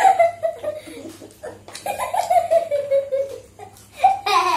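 People laughing and giggling in high-pitched vocal peals: one right at the start, a longer one about two seconds in that slides down in pitch, and another near the end.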